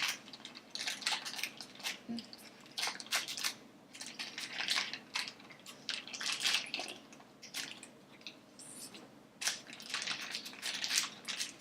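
Plastic packaging of a blind-bag surprise toy crinkling and rustling in irregular bursts as it is torn open and handled.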